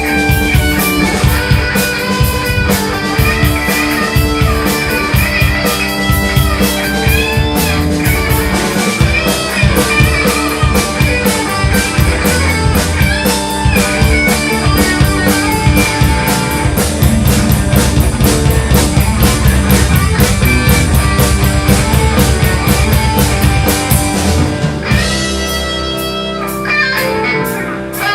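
Rock band playing: guitar melody with bending notes over a drum kit and bass. About three seconds before the end the drums drop out, leaving held guitar chords.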